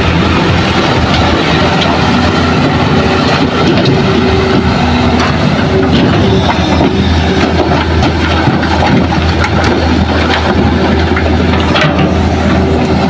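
Hitachi hydraulic excavator's diesel engine running steadily and loud while it works, loading a dump truck. Near the end there are sharp knocks as rocks and soil fall from the bucket into the steel truck bed.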